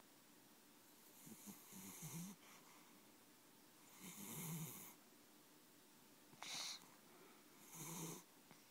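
A sleeping cat snoring faintly, four snoring breaths a couple of seconds apart.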